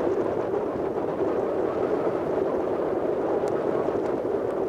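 Steady wind blowing over the microphone, with two faint ticks near the end.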